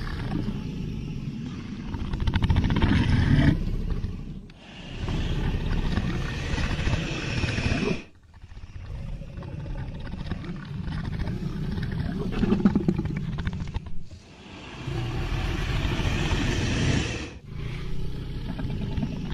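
Dragon growl sound effects from film: several low, rumbling creature growls a few seconds each, with brief breaks between them.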